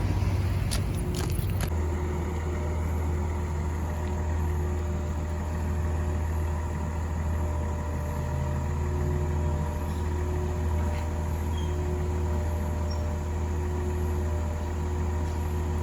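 Excavator's diesel engine running steadily, with a few sharp clicks about a second in.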